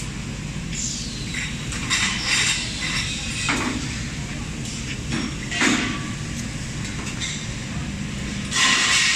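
Steady machine hum with short bursts of hissing every second or two, a falling squeal about a second in, and the loudest hiss near the end.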